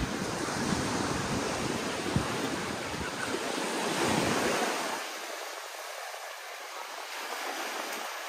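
Sea waves washing onto a sandy beach: a steady hiss of surf that swells about four seconds in. Wind buffets the microphone with a low rumble through the first half, then the rumble stops.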